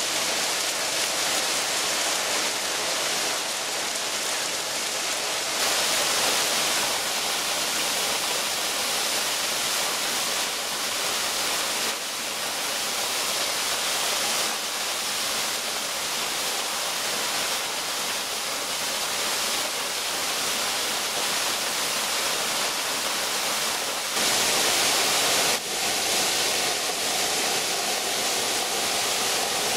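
Waterfalls falling and splashing onto rock and into a pool: a steady rushing of water that changes tone abruptly a few times as the falls change.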